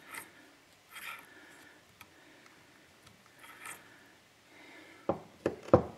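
Light handling noises from a needle roller bearing and parts being worked on a Maico 500 transmission output shaft clamped in a vise: faint scrapes and rustles, then three sharp knocks in quick succession about five seconds in.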